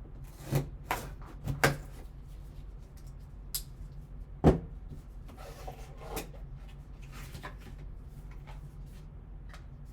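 Cards and card packaging being handled on a table: a few light taps early on, one sharp knock about four and a half seconds in, then soft rustling.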